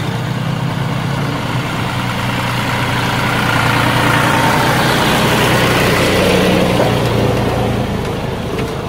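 John Deere diesel tractor hauling a loaded trailer drives past close by, its engine running steadily, growing louder as it passes midway and easing off near the end.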